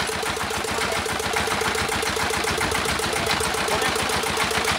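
A small engine on a well-drilling rig running steadily, with a fast, even chugging pulse.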